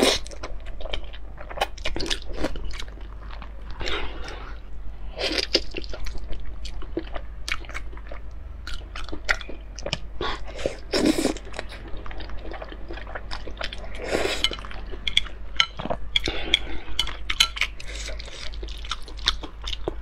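Close-miked eating of saucy spicy noodles: wet chewing and mouth clicks throughout, with several loud slurps of noodles, one at the very start and others around five, eleven and fourteen seconds in.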